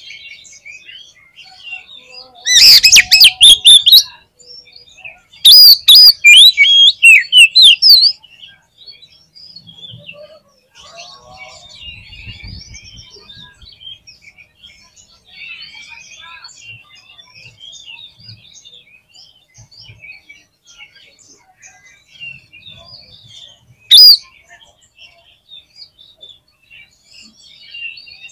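Oriental magpie-robin song: two loud bursts of quick, varied whistles and rattling notes, then a short loud phrase near the end, with faint twittering between the bursts.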